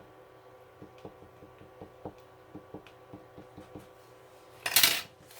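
Plastic cover film being peeled back from a sticky diamond-painting canvas: a run of small crackling ticks as it lifts off the adhesive, then a short loud rustle of the film and canvas near the end.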